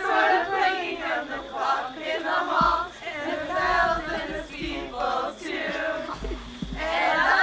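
A group of mixed male and female voices singing together like a choir.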